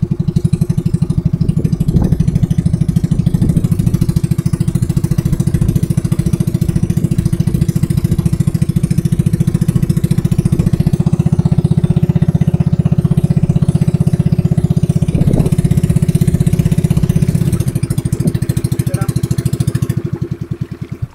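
Small engine of a motorized wooden boat running steadily with a rapid, even beat, then slowing and dying away near the end.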